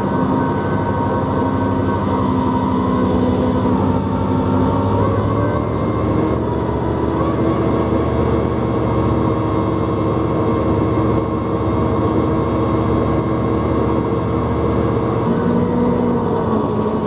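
Olympia ice resurfacer's engine running steadily under way. Its drone shifts in pitch about five seconds in and again near the end.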